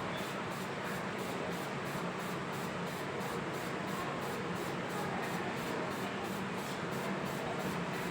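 Steady background hiss with a faint low hum, unchanging throughout, with no distinct events.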